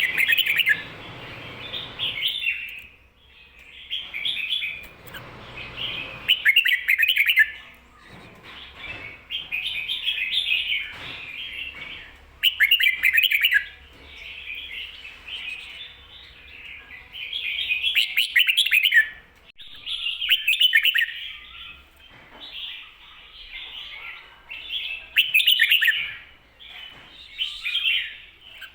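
Red-whiskered bulbul singing its 'kho-ta-ra' song with a doubled phrase, short bursts of quick warbling notes repeated every two to three seconds.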